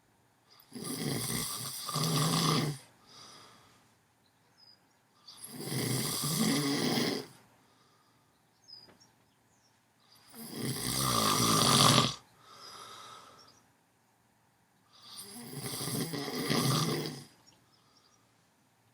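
A man snoring loudly in his sleep: four long snores about five seconds apart, each followed by a shorter, softer breath.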